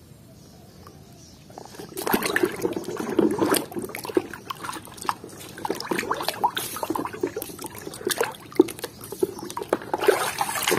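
Soapy water splashing and sloshing in a tub as a plastic toy gun is scrubbed by hand, with small knocks and clicks of plastic; it starts about two seconds in.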